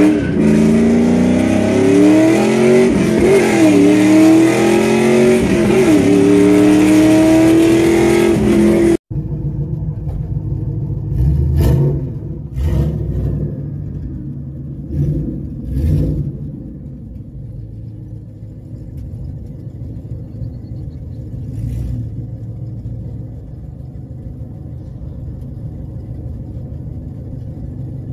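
2002 Camaro Z28's LS1 V8 through long-tube headers and a free-flowing exhaust, heard inside the cabin under hard acceleration, its pitch climbing with two brief dips. It cuts off suddenly about nine seconds in; then the engine blips four short revs and settles to a steady low rumble.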